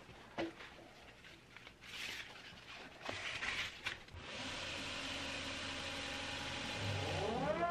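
Abrasive belt being changed on a belt grinder: clicks and rustles as the belt is pulled off and a new sanding belt fitted over the wheels, then the grinder starts running, its motor whine rising in pitch near the end to a steady tone as it comes up to speed.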